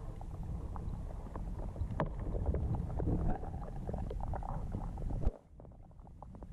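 Muffled underwater rumble and crackle of creek water moving against a submerged camera. A sharp knock comes about five seconds in, after which the sound turns quieter and duller.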